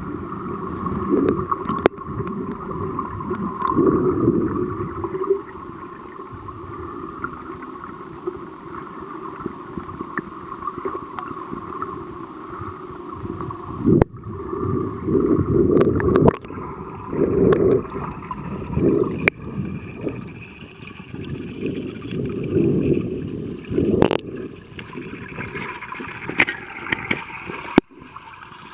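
Muffled water sounds heard underwater: a steady rushing hiss with irregular surges of bubbling and churning from a swimmer moving through the water, and a few sharp clicks.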